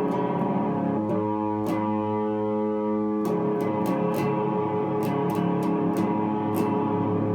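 Guitar music with no singing: sustained chords ring under regular short pick strokes, played through an effects unit.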